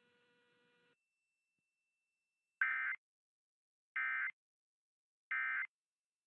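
Emergency Alert System end-of-message code: three short, identical bursts of warbling digital data tones about a second and a half apart, marking the end of the alert.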